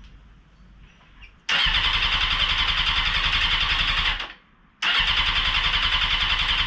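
Electric starter cranking a 1996 Suzuki GSX-R750 SRAD's engine in two attempts of a few seconds each, with a steady rapid pulsing, the engine not catching. It has no spark, which the owner puts down to swapped signal generator wires in the replacement wiring harness.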